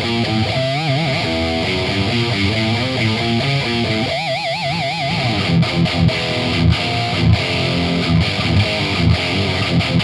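High-gain distorted electric guitar, with a Seymour Duncan Dimebucker pickup, played through an MXR 6-band EQ, Furman PQ4 and Randall RG100HT amplifier. Fast metal riffing with two held notes given wide vibrato, about a second in and about four seconds in, then choppy palm-muted chugging with short stops.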